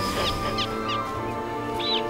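Background music with long held notes, over which a bird calls: a quick run of short high calls right at the start and one short arched call near the end.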